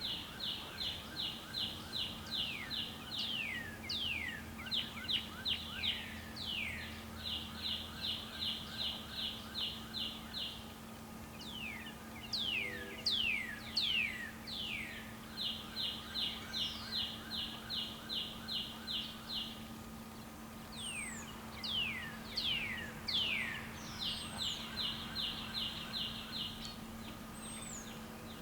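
Songbirds in the background: one repeats a trill of about five notes a second in four bouts of two to three seconds, with quick falling whistled notes between the bouts and a few high thin notes near the end, over a steady low hum. The great horned owlet's attempted call is not heard.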